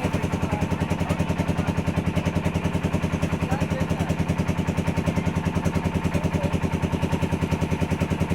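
A small engine running steadily at an even speed, with a regular pulse of about ten beats a second.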